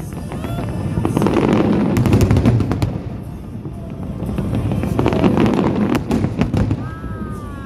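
Aerial fireworks shells bursting in rapid, overlapping volleys: a dense rumble of bangs and crackle that swells twice, strongest about two and five seconds in.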